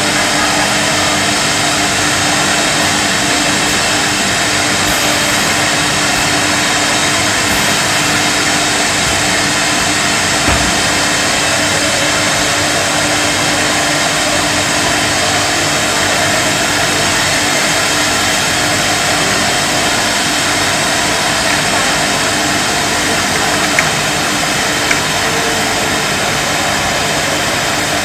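Jam-jar filling and conveying machinery running: a loud, steady mechanical din with a low hum under it. A few short clicks come through, about ten seconds in and near the end.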